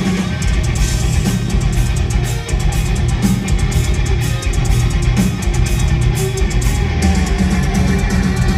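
Live hard rock band playing loud through a club PA: distorted electric guitars, bass and a pounding drum kit.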